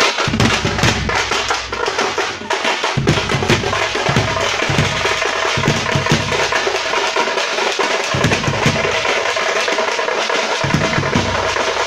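Thappattai (parai) frame drums beaten in a fast, dense, continuous rhythm, as in a Tamil Thaarai Thappattai procession.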